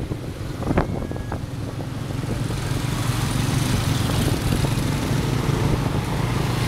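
Motorbike engine pulling a tuk tuk, running steadily at cruising speed, with the hum of the surrounding motorbike traffic. A short sharp click about a second in.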